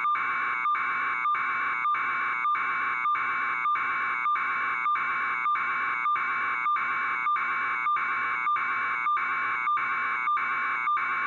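Continuous electronic buzzing tone, pulsing in a steady rhythm a little under twice a second.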